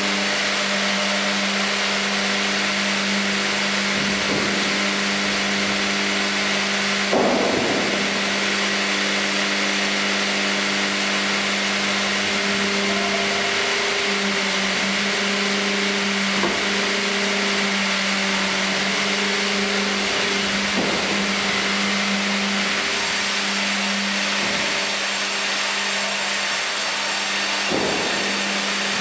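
Fimaksan sawmill line of a tandem band saw and hydraulic log carriage running with a steady machine hum and higher whining tones that come and go. A few heavy knocks stand out, the loudest about seven seconds in, as a log is loaded and clamped on the carriage.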